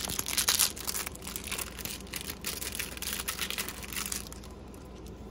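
A small clear plastic bag crinkling as it is handled and opened by hand: a run of irregular crackles that stops about four seconds in.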